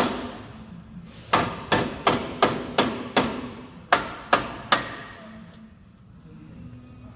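A run of about nine hammer blows on sheet-steel body metal, roughly three a second with a short break in the middle, each with a brief ring, then the blows stop. This is typical of hammering a crumpled chassis rail to relieve its stress while it is held under a frame-straightening pull.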